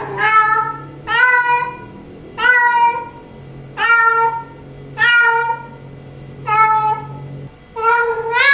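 Female cat in heat calling for a tom: a long, drawn-out meow repeated about seven times, roughly one call every second and a quarter.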